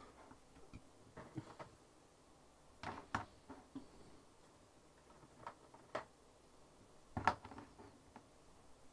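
Plastic Citadel paint pots being handled and set down on a cutting mat: scattered light clicks and knocks, the loudest about seven seconds in.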